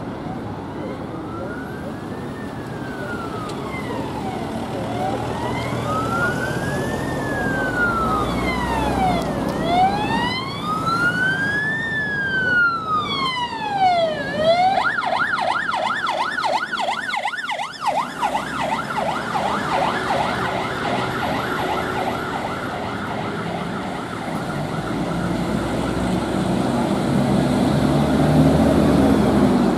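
Fiat Ducato ambulance siren sounding a slow wail, one rise and fall about every five seconds. About halfway through it switches to a fast yelp of several sweeps a second, which fades as the ambulance works through traffic. Road traffic runs underneath, and the vehicle's engine rumbles louder near the end.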